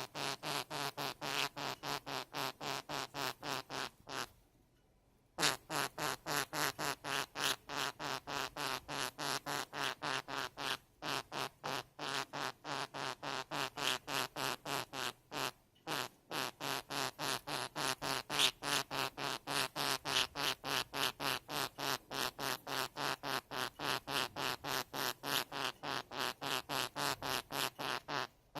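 A budgie making a strange noise over and over, about three to four short pulses a second, with a pause of about a second some four seconds in.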